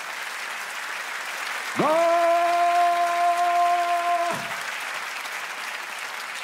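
Audience applauding, with a man's long held shouted goal call in the middle: one steady note of about two and a half seconds that slides up into it and drops off at the end, a mock Spanish football commentator's "Gooool".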